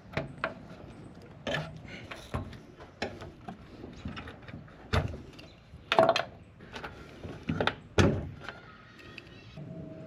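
Irregular clicks, knocks and clatter of hand tools and parts being handled while leaking rubber fuel hose lines on a car's fuel tank sending unit are replaced. The louder knocks come about five, six and eight seconds in.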